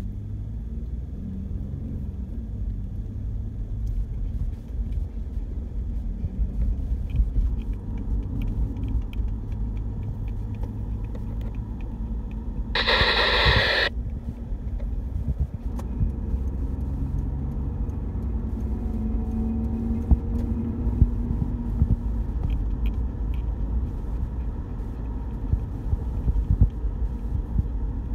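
Steady low rumble of a car, heard from inside the cabin. About halfway through comes one burst of hiss lasting about a second.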